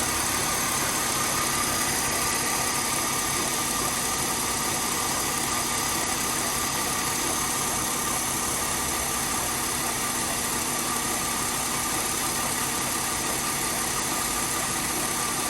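Mercedes W204 engine idling steadily, its accessory drive belt running on a newly replaced tensioner without squealing.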